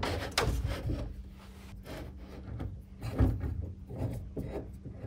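A thin piece of wood being slid and pressed into place against the inside of a wooden dresser side panel: wood rubbing and scraping, with a few light knocks.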